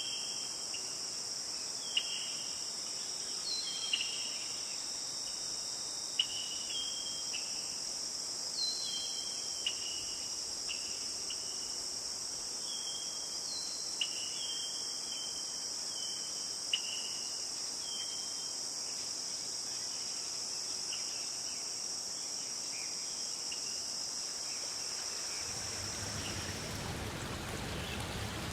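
Steady, high-pitched chorus of insects, crickets or cicadas, with scattered short chirps over it during the first half. Near the end the insect chorus stops and a wash of running water comes in.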